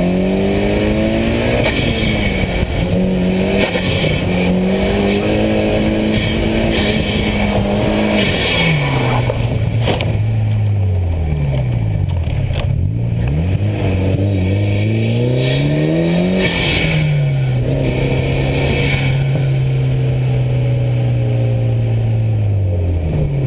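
Car engine working hard through an autocross run, the revs holding fairly steady for several seconds. About nine seconds in they drop sharply when the throttle is lifted, then sweep down and up several times as the car loses rear grip and spins, before holding steady again and falling near the end. The driver puts the lost grip partly down to rear tyres heated to 45 psi.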